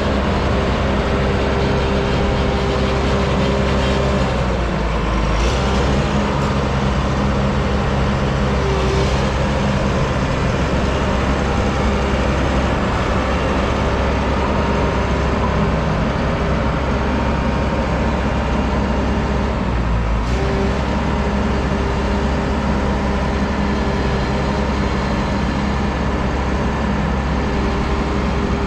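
Diesel engine of a Vögele 2116T asphalt paver running steadily. The engine note shifts slightly about five seconds in and again around twenty seconds.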